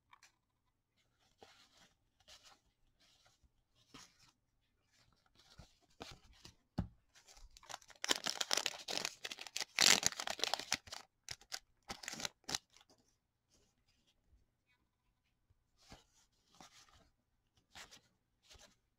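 Hockey card pack wrapper crinkling and tearing as a pack is pulled from the stack and opened, loudest for about four seconds near the middle, with lighter rustling of the cards being handled before and after.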